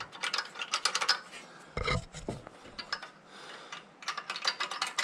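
Small metal parts and hand tools clinking and rattling in quick clusters of clicks, with a duller knock about two seconds in, as the top end of a small engine is worked on with the valve cover off.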